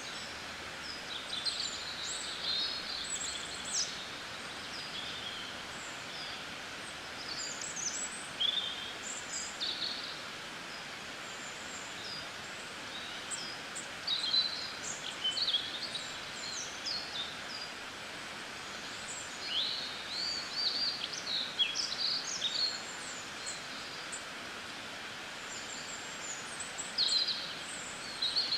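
Small songbirds chirping and twittering in repeated clusters of short, quick high notes, over a steady background hiss.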